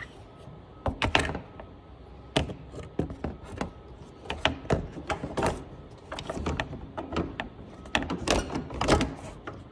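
Plastic cover in a Toyota Prius engine bay being pushed and worked into place: a string of irregular knocks and clicks, loudest near the end. The cover won't seat because a coolant hose is in the way.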